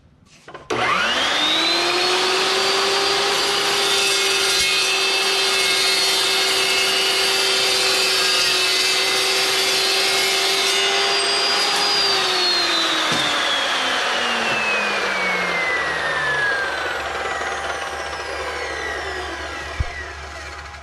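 Evolution S380CPS 15-inch metal-cutting chop saw starting up about a second in, its whine climbing quickly to a steady high pitch while it cuts through aluminium square tube. About halfway through it is switched off and winds down, the whine falling slowly for several seconds, with a knock near the end.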